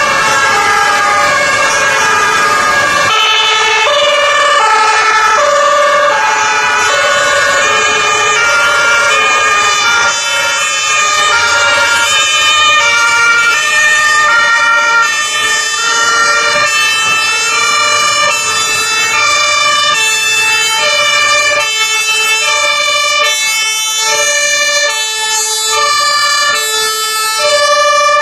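Several German two-tone emergency sirens (Martinshorn) sounding at once from a passing convoy of rescue and fire vehicles, their alternating high and low tones overlapping out of step. A low vehicle rumble underneath drops away about three seconds in.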